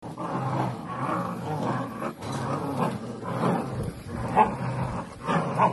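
Several Belgian Malinois and German Shepherd puppies growling together as they bite and tug at a mop head. The growling is continuous and rasping, and gets louder twice near the end.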